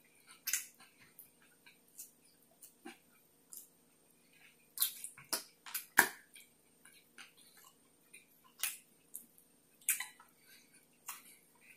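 Close-miked chewing and lip smacking: short wet mouth clicks and smacks at irregular intervals, the loudest cluster about five to six seconds in.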